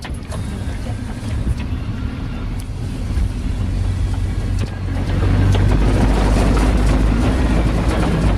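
Four-wheel-drive vehicle driving on a muddy road, a steady low engine and drivetrain rumble with tyre noise that grows louder about five seconds in.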